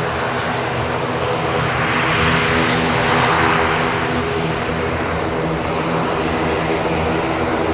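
ATR 42-600's twin Pratt & Whitney PW127M turboprops at high power on the take-off roll: a steady propeller drone of layered tones under a rushing hiss that swells about two to three seconds in.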